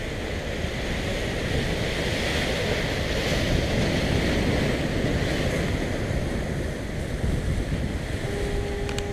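Ocean waves breaking and washing, with wind on the microphone. Near the end a steady low hum sets in.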